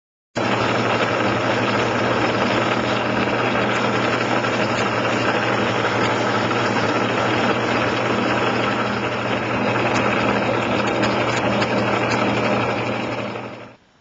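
A shop machine's electric motor running steadily: a loud, even hum with dense whirring noise. It starts abruptly and dies away near the end.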